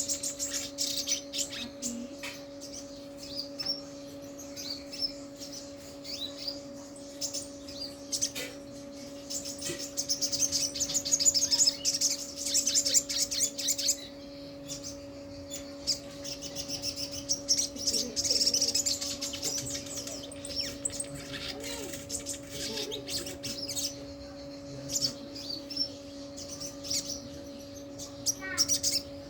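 Sogon (sogok ontong) bird singing: shrill, high chirps and calls, with two longer runs of rapid twittering in the middle. A steady low hum runs underneath.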